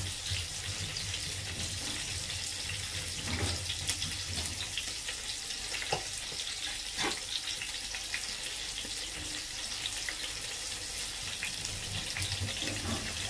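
Pot of pork and taro broth boiling on the stove: a steady bubbling hiss with scattered small pops over a low hum.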